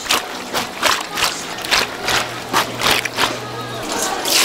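A quick run of sharp wet splashes and knocks, about three or four a second, from eel pieces being rinsed and handled over a steel bowl of water. A low steady hum comes in for a couple of seconds in the middle.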